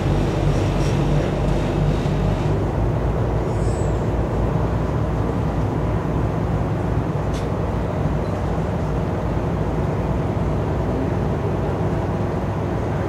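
River cruise boat's engines running steadily under way, a constant low drone heard inside the passenger cabin.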